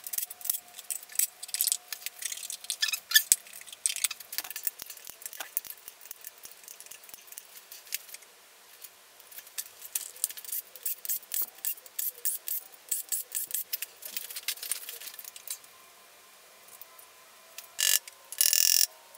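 Hand ratchet clicking in short runs, with small metal clinks, as the bolts of a Subaru EJ255 engine's timing-belt backing plate are backed out by hand rather than with an impact gun. After a quiet pause, two louder metallic scrapes come near the end as the plate is handled.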